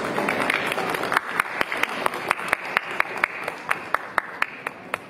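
Audience applauding: dense clapping thins about a second in to scattered single claps, a few a second, and dies away near the end.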